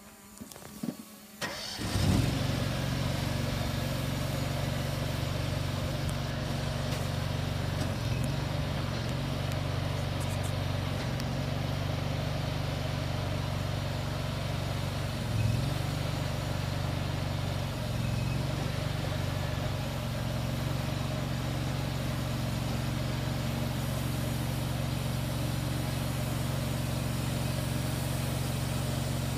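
Engine of a trailer-mounted hydraulic pump puller starting after a few clicks about two seconds in, then running steadily.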